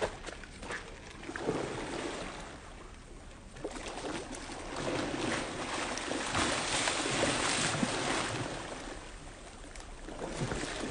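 Hooked fish thrashing at the pond surface, churning and splashing the water in spells, heaviest in the middle.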